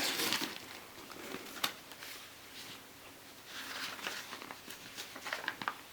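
Faint rustling and handling noise from rummaging through a tool bag's contents, with a sharp click about a second and a half in, a longer rustle midway, and a few small clicks near the end.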